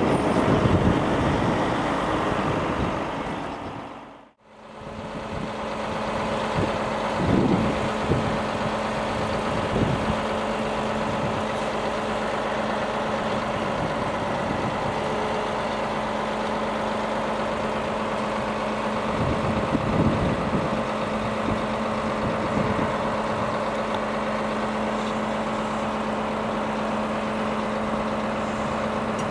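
Volvo truck's diesel engine running steadily at idle while its loader crane works, swelling louder a few times. The sound fades out and back in about four seconds in.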